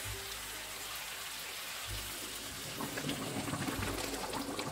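Boiling water poured into a wide pan of rice over fried meat for plov, a hissing, splashing pour that grows louder about three seconds in.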